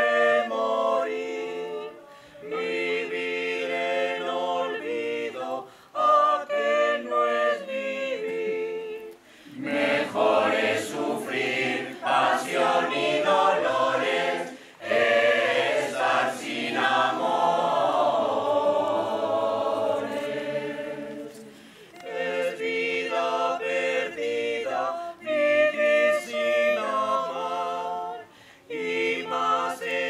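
Mixed choir of men and women singing a cappella, in phrases broken by short pauses, with a fuller, busier passage through the middle.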